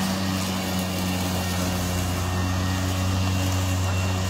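Battery-powered push mowers (an EGO and a Stihl) running under cutting load, giving a steady low hum from the motors and spinning blades.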